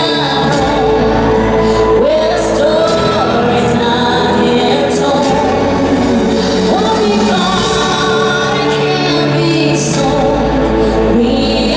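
Live pop music: a woman singing lead into a microphone over a full band, recorded from the audience in a large arena.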